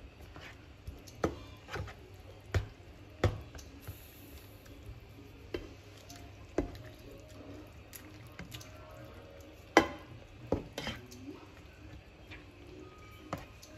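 Plastic spatula knocking and scraping against a nonstick frying pan as it stirs and presses tomatoes and scrambled egg in their juice: about nine sharp taps scattered irregularly, the loudest about ten seconds in.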